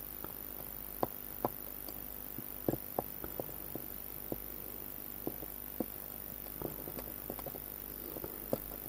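Small, irregular clicks and taps of steel tweezers against the metal plate of an FE 233-69 jump hour watch movement as a part that won't line up is nudged and jiggled into place, over a faint steady hum.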